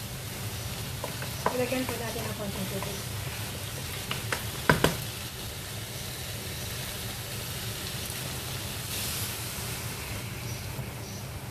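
Pork spare ribs sizzling in oil in a nonstick wok as they are stirred with a wooden spatula. About halfway through come a few sharp knocks of the spatula against the pan.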